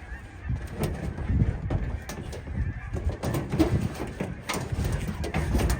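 Scattered knocks and clunks of a metal clothes dryer being handled and carried, over a low rumble, with a couple of short squeaks.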